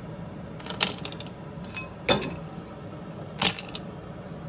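Ice cubes dropped onto an upturned glass pot lid, clinking sharply four or five times, the loudest about three and a half seconds in, over a steady low hum. The ice chills the lid of a makeshift stovetop still so that the rose-petal steam condenses into rose water.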